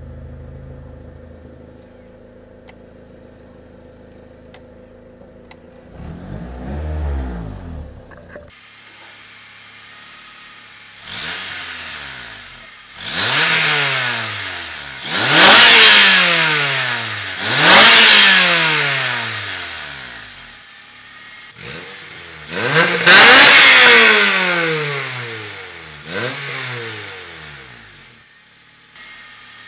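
Honda K20A four-cylinder engine in a Civic hatchback idling, then revved through its aftermarket exhaust with an electric cutout. There is one small blip early on, then a series of throttle blips from a little over a third of the way in, each rising and falling in pitch. The loudest revs come around the middle and again near three-quarters through.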